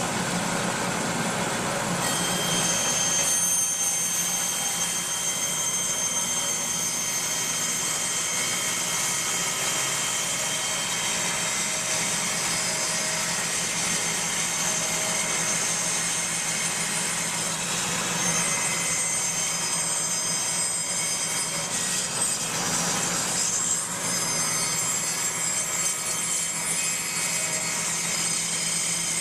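A woodworking power tool running continuously, a steady hum with several high whining tones over it.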